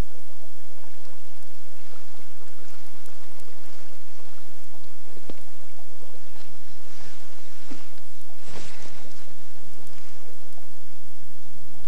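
Running river water over a steady low hum, with a short whooshing swish about eight and a half seconds in as the fly line is ripped off the water in a Spey cast.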